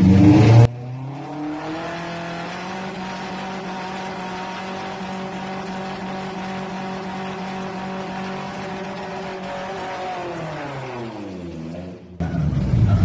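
Lifted Toyota Tacoma pickup's engine held at steady high revs while its tyres spin in a smoky burnout. The revs fall away about ten seconds in. Louder bursts of engine noise come at the very start and again near the end.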